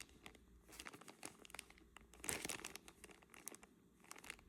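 Faint crinkling of a plastic jewelry bag being handled, with scattered small clicks; the crinkling is loudest a little over two seconds in.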